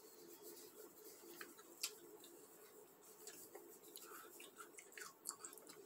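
Near silence: room tone with a faint steady hum and a few faint small clicks.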